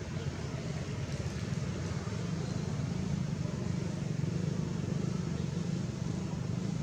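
A steady low engine rumble, swelling slightly in the second half.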